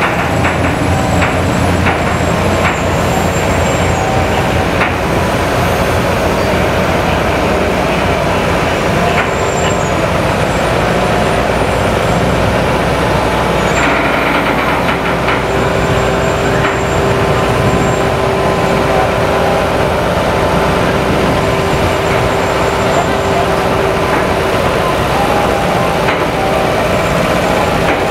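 Heavy-haulage truck diesel engines running loudly and steadily, with a steady tone joining in about fifteen seconds in.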